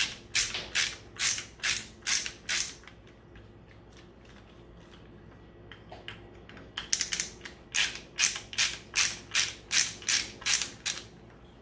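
Screwdriver clicking at a steady rhythm, about two clicks a second, as it backs small screws out of a CB microphone's speaker: one run of clicks, a pause of about four seconds, then a longer run.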